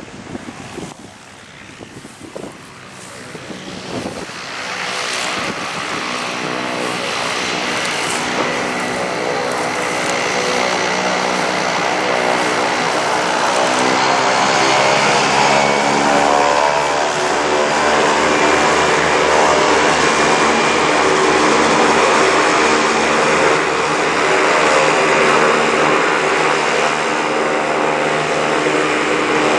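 A light propeller plane's engine running at high power for a takeoff run. It grows louder over about the first ten seconds, then holds a steady, loud drone.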